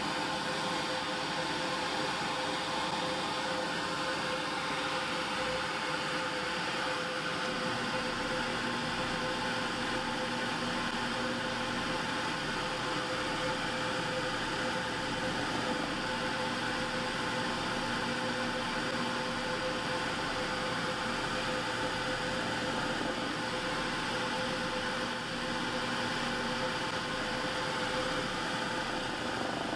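Drill press running steadily, its bit drilling into a small wooden block held in a clamped jig. A lower tone joins the steady hum three times, for a few seconds each.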